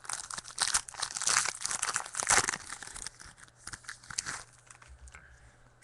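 Foil trading-card pack wrapper being torn open and crinkled, with cards being handled. The rustling is busy for the first four seconds or so, then dies down.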